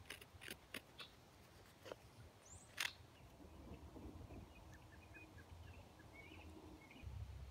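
Knife blade cutting dry aspen wood in a few short, crisp strokes over the first three seconds, the loudest near three seconds in. Faint bird chirps follow in the background.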